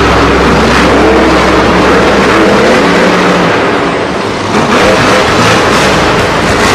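Monster trucks' supercharged V8 engines revving, loud and continuous, with a brief dip about four seconds in.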